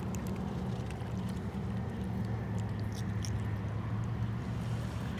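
Steady low engine hum from a motor in the distance, growing a little stronger partway through, with faint small clicks as a hook is worked out of a small fish's mouth.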